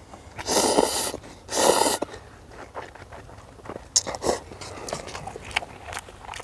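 Ramen noodles slurped twice in quick succession, loudly, followed by chewing with small wet clicks.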